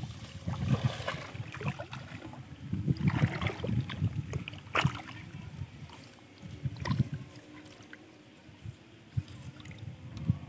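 Water sloshing and splashing irregularly as hands move through shallow water, with a few sharper splashes about five and seven seconds in.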